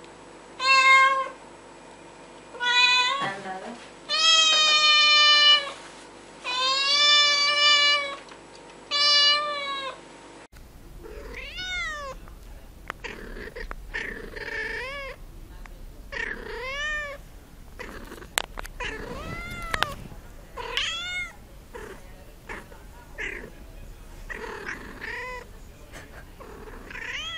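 Domestic cats meowing. First come about five loud, drawn-out meows. Then, about ten seconds in, a second cat takes over with many shorter, quieter meows, roughly one a second, and a couple of sharp clicks partway through.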